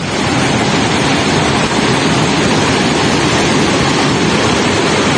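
Brown floodwater torrent rushing past, a loud, steady, even rush of water.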